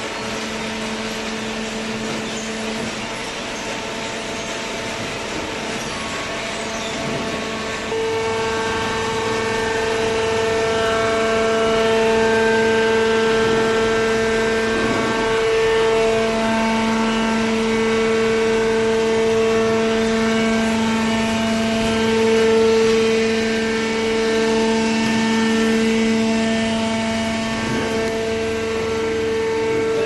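Hydraulic cardboard baler and its feed conveyor running: a steady mechanical hum and whine with several held pitches. It grows louder about eight seconds in.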